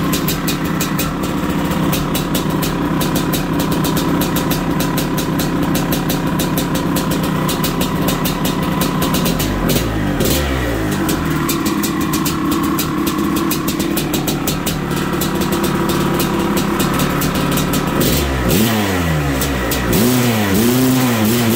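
Maico 700 two-stroke single-cylinder dirt bike engine running at idle. Its revs are blipped up and down about halfway through, and several times in quick succession near the end.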